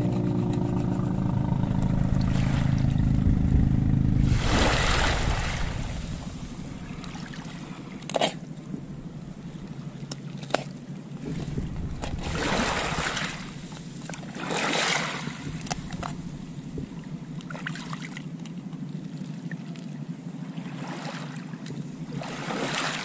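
Background music for the first few seconds, then small waves washing in over a pebble beach in surges every few seconds, with a couple of sharp clicks in between.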